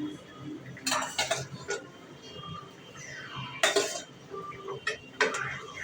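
Metal utensil clinking and scraping against a cooking pan, in irregular knocks about a second apart, the loudest about three and a half seconds in.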